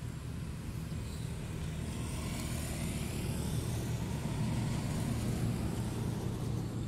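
A motor vehicle passing on a nearby road: a low rumble that builds and peaks past the middle, then eases slightly.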